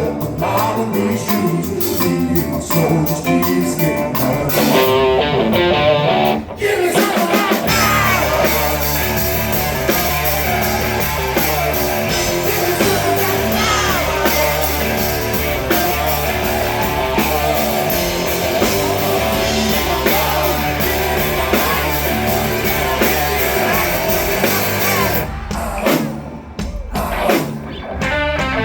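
Live rock band performing with lead vocals, electric guitar and drums; the bass and full band come in about six and a half seconds in after a brief break.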